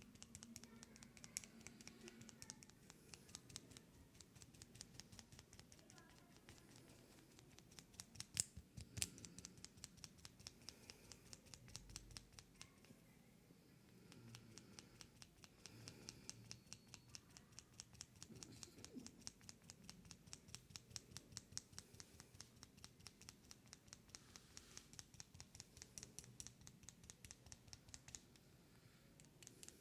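Faint, crisp close-up clicking of an ASMR trigger, fast and regular at about six clicks a second, with a couple of louder clicks about eight and nine seconds in.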